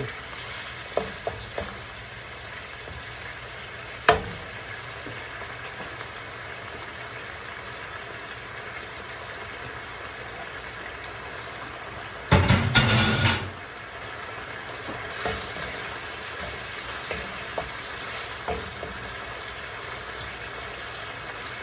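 Bok choy cooking down in sauce in a skillet on high heat: a steady sizzle, with a few short knocks of a wooden spoon against the pan while stirring. About twelve seconds in comes a louder noise lasting about a second.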